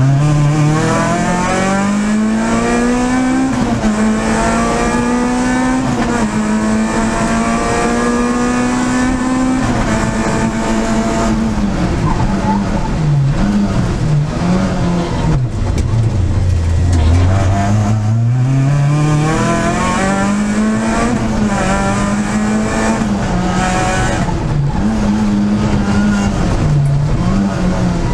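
Peugeot 306 Group A rally car's four-cylinder engine, heard from inside the cockpit, revving hard through several gear changes. About halfway through the revs drop low as the car slows, then it pulls back up through the gears.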